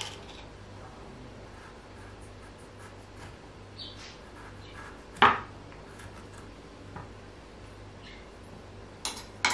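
Kitchen utensils and dishes being handled: a few light clicks, one sharp knock about five seconds in, and two more clicks near the end.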